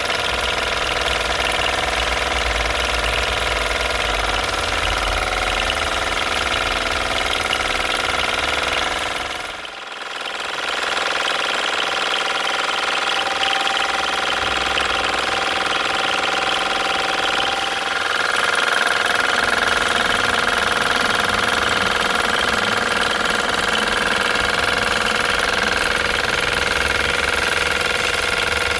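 Mamod SE2a toy stationary steam engine running at speed: a steady, rapid mechanical running sound from its cylinder and spinning flywheel, briefly dipping in loudness about ten seconds in.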